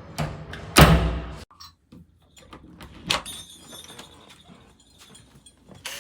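Door-lock hardware being handled and fitted to a door: a heavy thump with a scraping rustle about a second in, then a sharp click around three seconds.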